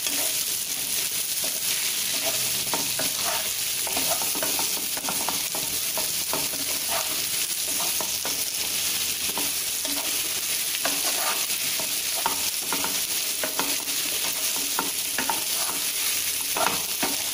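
Boiled baby potatoes and onion masala sizzling in oil in a nonstick pan, with a spatula stirring and scraping through them in irregular strokes over a steady frying hiss.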